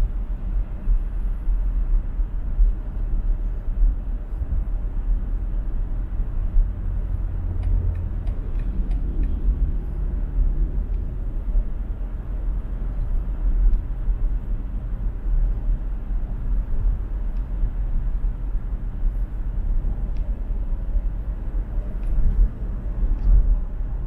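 Car travelling at highway speed: steady low road and tyre rumble with no distinct events.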